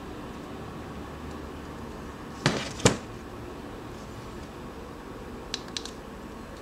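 Two sharp knocks about half a second apart as a smartphone is set down on a table, then a few light clicks from handling a phone, over a steady background hiss.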